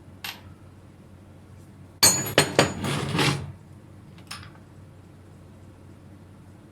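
Metal tools or parts clattering and clinking together for about a second and a half, with several sharp strikes that ring briefly. A single lighter click comes just before and another after.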